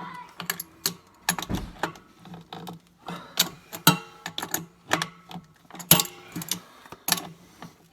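Irregular metallic clicks, clinks and rattles of tools and pipe fittings being handled and turned during plumbing work.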